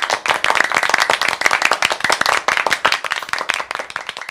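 A group of people applauding, with dense, fast, irregular hand claps.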